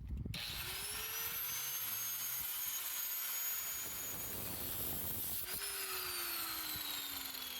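Power cutoff tool spinning up about half a second in and running at a steady whine while cutting through the rusted exhaust pipe at the flange, then released about five and a half seconds in and winding down.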